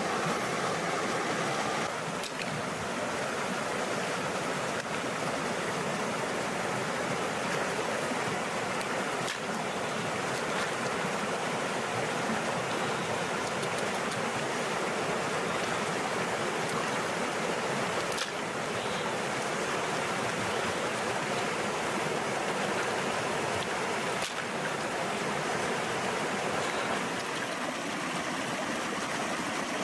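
Steady rush of a rocky stream flowing fast over stones, with a few faint ticks now and then.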